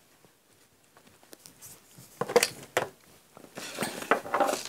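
Soft rustling and a few light taps of paper and lace being handled and arranged on a work surface, with a longer rustle near the end.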